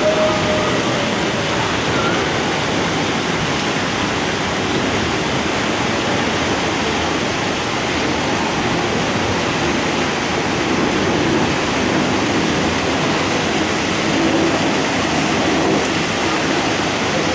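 Steady rush of falling and splashing water, an even hiss with no breaks.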